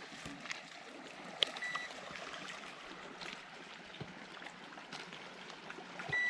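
Water trickling and splashing, with a few light knocks of handling. A digital fish scale gives a short high beep about one and a half seconds in and starts a louder beep at the very end.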